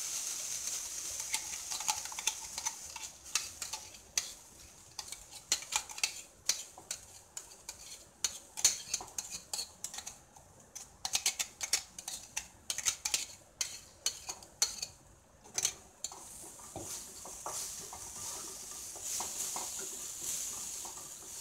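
Wet ground paste sizzling as it goes into hot oil in a kadai, then many sharp clicks and knocks as a wooden spatula scrapes out a steel mixer-grinder jar and the jar knocks against the pan. Near the end the paste sizzles again as it is stirred.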